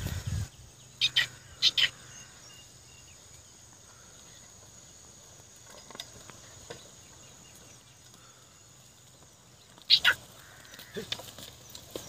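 Quiet open-field ambience with a faint steady insect drone, broken by a few short, sharp calls: two quick pairs about a second in and a louder one near the end.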